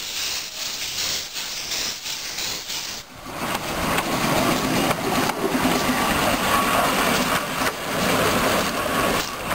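Small 15-inch-gauge steam tank locomotive moving off, with steam hissing from its open cylinder drain cocks. About three seconds in the sound turns louder and lower as the engine runs past close by.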